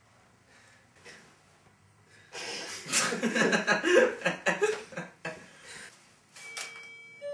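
Quiet room tone for about two seconds, then a loud burst of laughter lasting about three seconds that trails off. A few steady music notes come in near the end.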